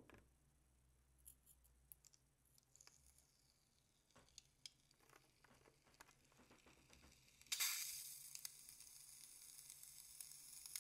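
A scissors snip at the balloon's neck, then faint handling clicks. About three quarters of the way through, foam begins hissing out of the cut balloon as it is squeezed, a steady hiss that carries on.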